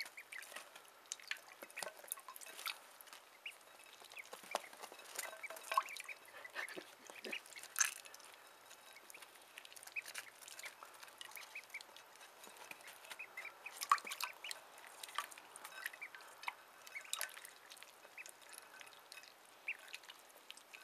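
Ducklings peeping in many short scattered calls while they paddle in a shallow dish of water, with light splashes and drips.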